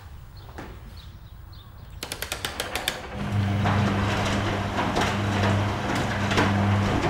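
A quick run of clicks, then an electric kettle heating up from about three seconds in: a steady low electrical hum under a constant rushing hiss.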